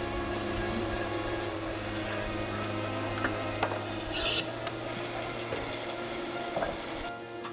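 Roller-head forming machine running with a steady hum while its spinning roller head rubs and scrapes wet clay in a bowl mould, with a short hiss about four seconds in.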